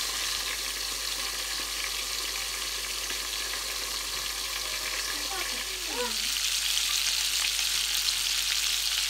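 Small whole fish (dace) frying in hot oil in a frying pan: a steady, crackling sizzle that grows louder about two-thirds of the way in.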